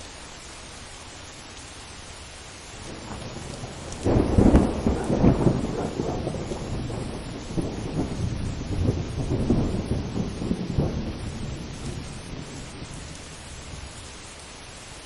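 A long roll of thunder over steady rain: a rumble builds about three seconds in, breaks into a loud crackling peak about a second later, rolls on in several swells, and fades away near the end, leaving the rain hiss.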